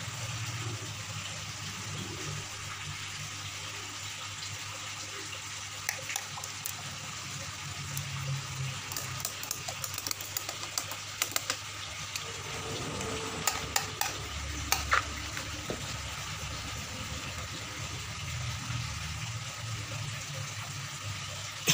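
Water in a koi holding tub: a steady rush of water with a low hum underneath, and scattered light splashes and clicks from about a quarter of the way in to past the middle.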